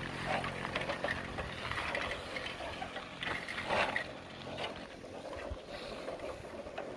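Wind rushing over a phone microphone while riding a bicycle along a road, with a passing motorcycle's engine fading away at the start.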